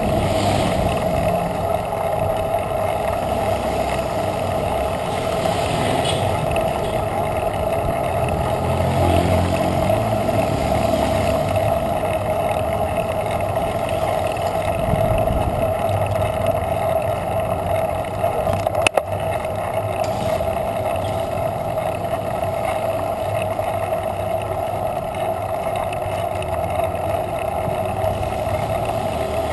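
Steady wind and road noise from riding a bicycle along an asphalt street, rushing over the microphone of a camera mounted on the bike. One sharp click comes about nineteen seconds in.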